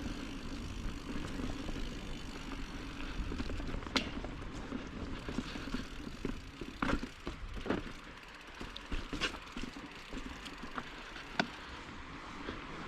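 Mountain bike (Giant Trance) rolling along a dirt singletrack: steady tyre and wind noise on the camera's microphone, with a handful of sharp knocks and rattles from the bike over roots and rocks.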